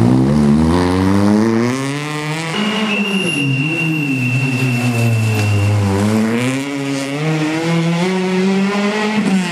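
Renault Clio Williams rally car's 2.0-litre four-cylinder engine revving hard, its pitch climbing, cutting back about two and a half seconds in, sinking for a few seconds as the car slows, then climbing again and holding. A thin, steady high squeal sounds for about three seconds in the middle.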